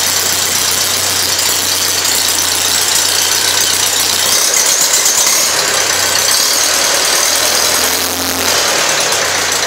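Farmall Super A tractor's four-cylinder gasoline engine running at idle while warming up after a cold start, with a light rattle. Its note changes a little in the second half.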